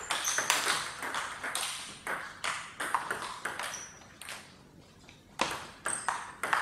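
Table tennis rally: the celluloid ball clicking sharply off the players' bats and bouncing on the table in a quick, uneven series of strikes.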